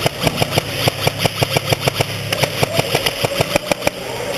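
Airsoft electric guns firing on full auto: a rapid string of sharp cracks, about seven or eight a second, that stops near the end.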